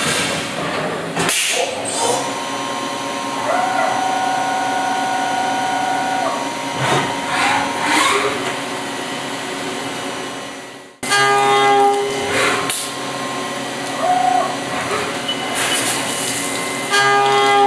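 Five-axis CNC milling machine cutting a metal chess piece: spindle whine and cutting noise, with held tones that step in pitch as the toolpath moves. The sound cuts out briefly about eleven seconds in.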